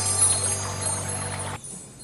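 Background music of sustained tones, which drops away sharply about one and a half seconds in to a much quieter sound.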